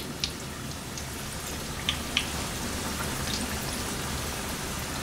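Pocket samosas deep-frying in hot oil: a steady sizzle, with a few short clicks as they are turned with a perforated slotted spoon.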